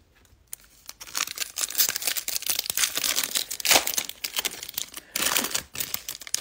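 Foil wrapper of a Bowman baseball card pack being torn open and peeled back by hand: a dense crinkling crackle that starts about a second in, loudest a little before four seconds in.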